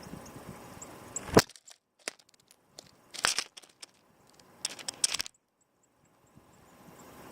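A handful of sharp knocks and crunches, the loudest about a second and a half in, with stretches of near silence between them. Faint, short, high chirps of small birds come through now and then.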